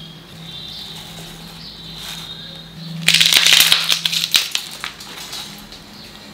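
Fresh herbs and green chillies being tipped into a steel mixer-grinder jar: a loud rustling, rattling clatter about three seconds in that lasts over a second. A faint steady hum runs underneath before it.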